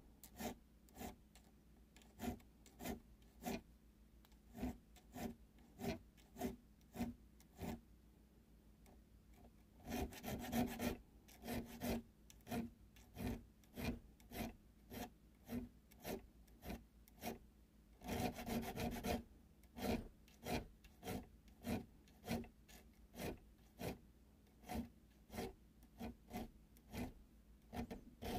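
Half-round needle file being stroked across the spine of a steel knife liner held in a vise, widening the notches of the file work: short rasping strokes in a steady rhythm of one to two a second. The strokes pause briefly, then come in two quicker, continuous runs, about ten and about eighteen seconds in.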